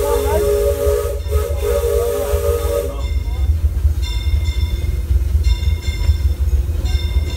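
Steam locomotive whistle blowing a long, hissing chord that stops about three seconds in. Then comes a high metallic ringing in short repeated strokes, over the low rumble of the train running.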